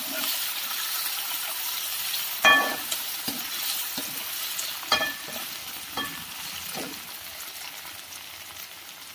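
Chopped onions sizzling in hot oil in a kadhai, being sautéed until light brown. A spatula stirs them and knocks against the pan several times, the first knock the loudest. The sizzle fades gradually toward the end.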